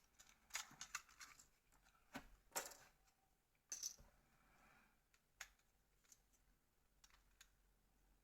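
Faint, scattered clicks and taps of small plastic phone parts and a tool being handled as the keyboard buttons are taken out of a Nokia N900. A few sharper clicks come in the first four seconds, then only light ticks.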